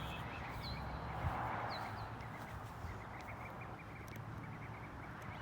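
Small birds chirping in quick, repeated short calls over a steady hiss of outdoor background noise.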